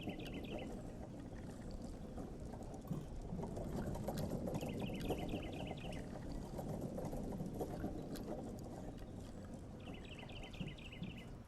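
Town ambience: a steady low hubbub of a crowd and movement, with a bird's short chirping trill repeated three times, about five seconds apart.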